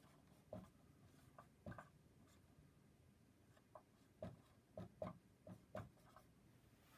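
Faint dry-erase marker strokes on a whiteboard as words are written: short separate squeaks and scratches, a few early on and then a quicker run of them from about four to six seconds in.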